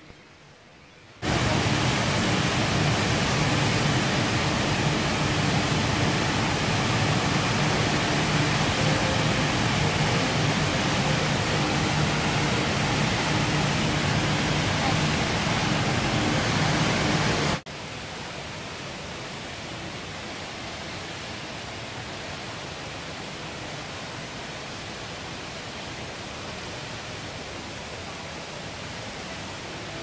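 Indoor waterfall, the Rain Vortex, pouring: a steady rushing noise of falling water. It comes in loudly about a second in, then drops abruptly to a quieter, even rush a little after halfway.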